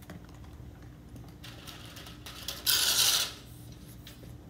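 Metal drip edge being handled: a short rustling scrape, then about three seconds in a louder half-second metallic scrape, over a steady low hum.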